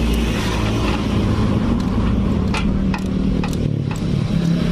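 A motor vehicle engine running steadily in the background, with a few light clicks from hands working on a motorcycle's valve cover bolt.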